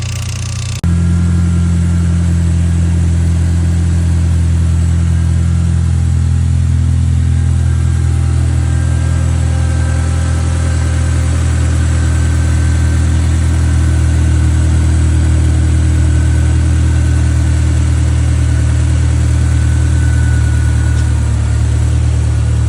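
Honda S2000 AP1's F20C inline-four engine idling steadily. The sound jumps abruptly to a louder, fuller note about a second in, then runs on evenly.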